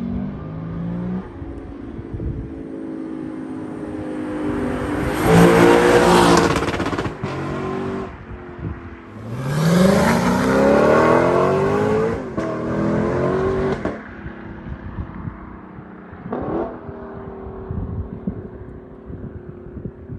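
Lexus LC500's 5.0 L V8 revving hard twice, the second a rising full-throttle pull with the rear tyres spinning in a burnout. A gear change near twelve seconds in, then the exhaust note fades as the car drives off.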